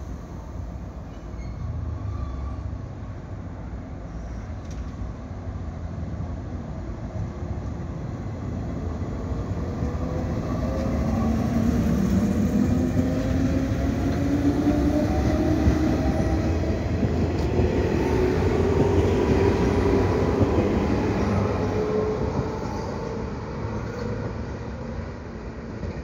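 JR 115-series electric train, two sets coupled, pulling away from a station. Its traction motors hum with steadily rising pitch as it accelerates, over a low rumble of wheels on rail. It is loudest midway as the cars pass close, then fades as it draws away.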